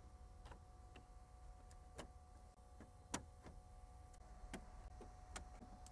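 Faint, sharp clicks of plastic push-pin retainers being pried out with push-pin pliers, one every second or so.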